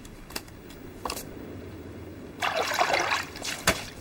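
A short rush of splashing water about two and a half seconds in, lasting under a second, after a couple of faint clicks.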